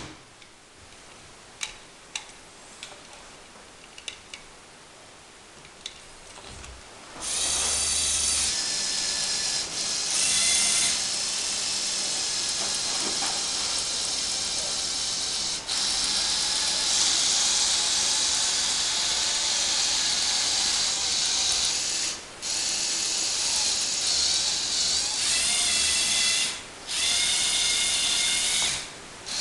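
Lego Technic Power Functions electric motors whirring through plastic gears. A few quiet seconds with light clicks come first, then the motors run in long stretches, stopping briefly three times.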